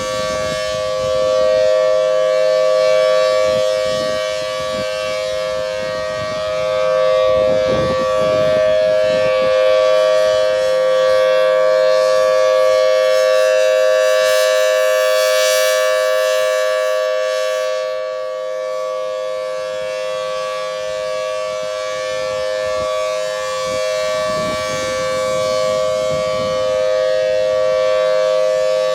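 Federal Signal Thunderbolt 1000T outdoor warning siren sounding its Alert signal: a steady two-note tone held without pitch change. It swells and fades slowly as the rotating siren head turns toward and away.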